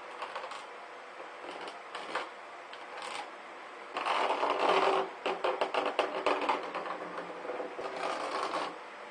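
Materials being handled: short scattered rustles, then about four seconds in a louder burst of rustling followed by a run of quick, irregular clicking and rattling that stops shortly before the end.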